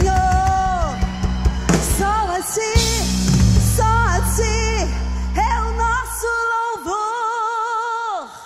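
Live worship-song ending: a woman sings a wordless run over the band, the band's low end drops out about six seconds in, and she holds a final note with vibrato that cuts off near the end.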